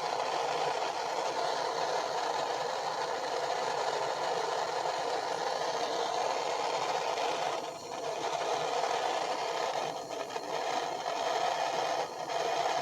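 Propane torch flame running steadily while heating a copper pipe joint for soldering, dipping briefly three times in the second half.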